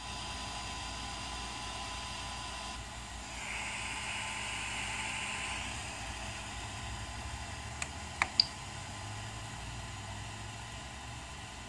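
Prusa i3 MK2S 3D printer's cooling fans running with a steady hiss and a faint steady tone while the hotend and heated bed heat up to printing temperature. A few sharp clicks about eight seconds in, from the printer's LCD control knob being pressed.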